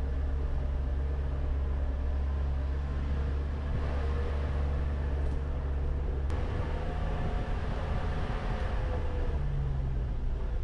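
Mitsubishi L300 Delica 4WD van's engine running steadily as the van drives along a dirt track, with one sharp click about six seconds in.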